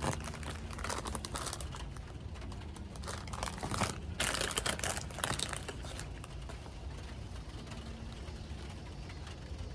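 Plastic snack packaging crinkling and rustling in bursts over the first several seconds, then settling.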